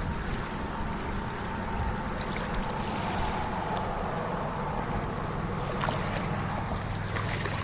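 Steady low hum of a boat motor running, over a wash of water and wind noise.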